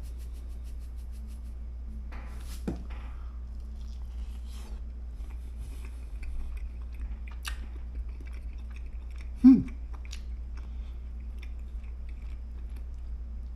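A man chewing a mouthful of omelette, with faint soft clicks of the mouth, and one short hummed voice sound about nine and a half seconds in. A steady low hum sits underneath.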